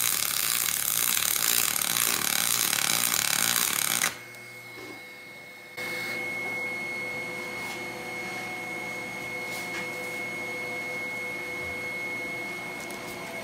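Double-pulse MIG arc welding aluminum with 5356 wire, a steady crackling hiss for about four seconds that cuts off abruptly. After a short pause, the Stel Iron MIG 303SP welding machine with its water cooler runs with a steady hum and a thin high whine.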